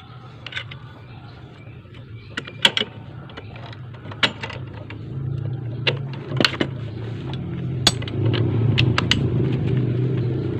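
Scattered sharp metallic clinks of socket tools working on a scooter's CVT pulley nut. About halfway through, a steady low mechanical hum starts and grows a little louder.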